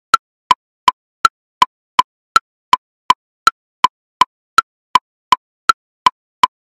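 Metronome clicking in triplets at 54 BPM: a higher woodblock click on each beat followed by two lower clicks, evenly spaced a little under three clicks a second.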